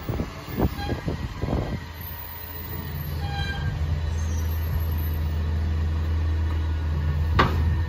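Rear-loader garbage truck's engine running with a steady low hum, after a brief run of sharp knocks and clatter in the first two seconds. One sharp thump about seven and a half seconds in.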